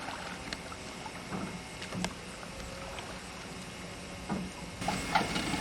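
Steady low hiss of outdoor waterside ambience on an old camcorder soundtrack, with a few faint, short knocks.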